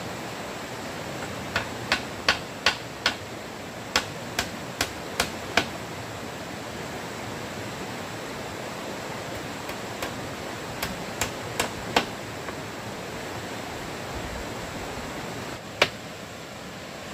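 Light hammer strikes: two quick runs of about five strikes each in the first six seconds, a handful of scattered strikes a little later, and one sharp strike near the end, over a steady rushing noise.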